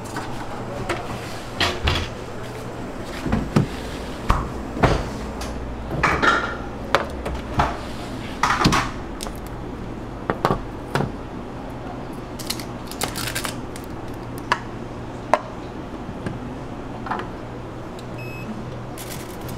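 Scattered knocks and clinks of dishes, utensils and containers being handled during food prep, over a steady low hum. A short beep sounds near the end.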